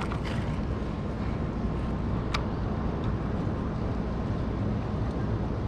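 Steady low rumble of wind buffeting the microphone, with a single sharp click about two and a half seconds in.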